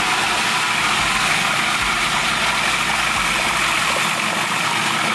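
Countertop food processor running steadily at full speed, its blade pureeing fresh raspberries into a sauce.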